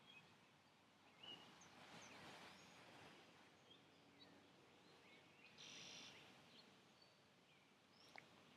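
Near silence with faint, scattered bird chirps and a few soft breathy swells.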